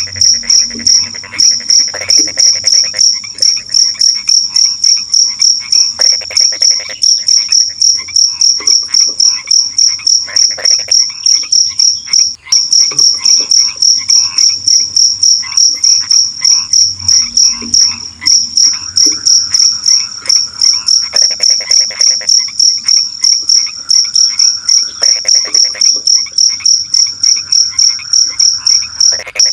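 Crickets chirping loudly in a fast, even, high-pitched rhythm, with frogs croaking in short bouts every few seconds beneath them: a night chorus of insects and frogs.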